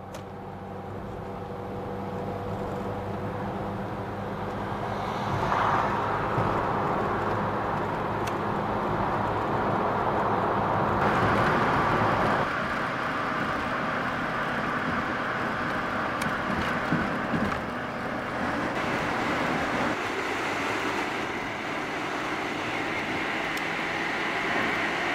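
Car driving on a motorway, heard from inside the cabin: a steady low engine hum under continuous tyre and road noise.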